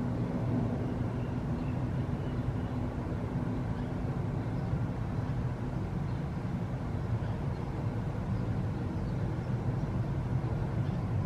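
Steady low background rumble, with a low hum that fades out about four seconds in.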